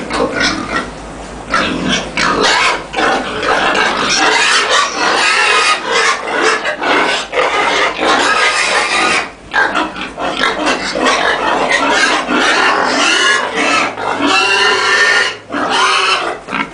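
Many pigs squealing together in a loud, dense, continuous din, with a couple of brief lulls.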